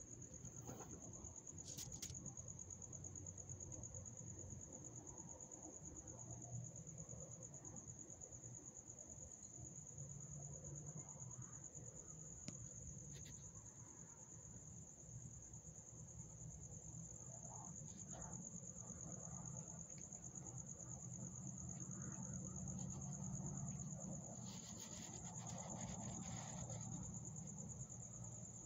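Night insects trilling in one steady, high, unbroken note, with a low rumble and a few faint clicks.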